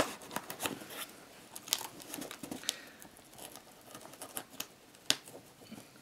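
Box cutter blade slitting the packing tape along the seam of a cardboard box: scattered scratchy scrapes and crackles of tape and cardboard, with a few sharper clicks, the loudest about five seconds in.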